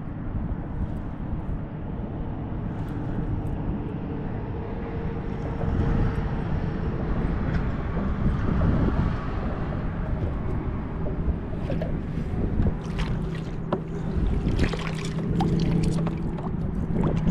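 Wind buffeting the microphone over water lapping at a kayak's hull. In the last few seconds come many sharp splashes and knocks as a hooked fish thrashes at the surface and is scooped into a landing net.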